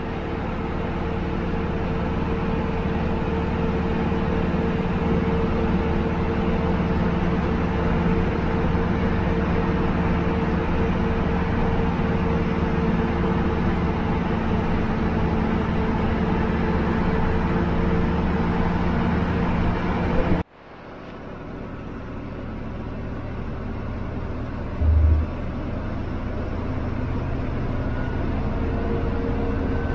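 Bus diesel engine running steadily under load, heard from inside the driver's cab, with a low hum and road noise. About two-thirds of the way through the sound cuts out abruptly and fades back in quieter, and a few seconds later there is one short low thump.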